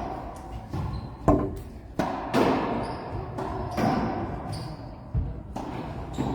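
Racquetball rally: the ball cracking off racquets and court walls, several sharp, irregularly spaced hits, each ringing briefly in the court.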